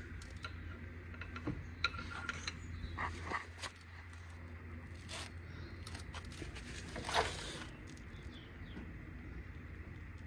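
Scattered light metallic clicks and short scrapes as a swivel-head ratchet with a cheat bar is worked on a seized T55 Torx caliper-bracket bolt, with the loudest scrape about seven seconds in. The bolt is stuck and does not break loose. A faint steady low hum runs underneath.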